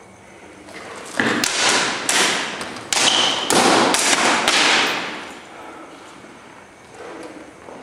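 Synthetic longswords clacking together in a quick exchange of blows: a flurry of sharp strikes starting about a second in and dying away after about four seconds.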